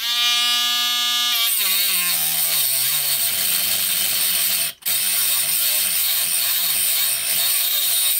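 WL-800 micro grinder with a small cutting disc whining at full speed, then cutting into a steel nail shaft. About a second and a half in, the motor's pitch drops and keeps sagging and recovering as it is loaded, under a harsh grinding hiss, with a momentary break about five seconds in. The small grinder is struggling with a cut that is too heavy duty for it.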